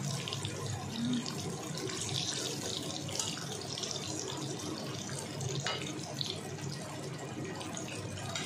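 Eggplant slices sizzling as they shallow-fry in oil in a wok, a steady hiss, with a metal spatula moving them and one sharp click about five and a half seconds in.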